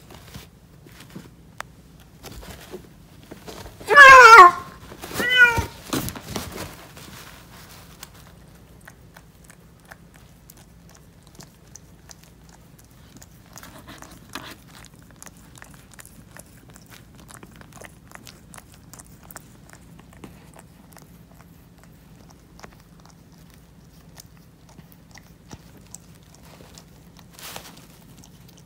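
Two loud cat cries about a second apart, the first a falling cry and the second shorter, a few seconds in; this is a calico cat's box during birth, where a newborn kitten is being licked. Afterwards only faint rustling and small clicks.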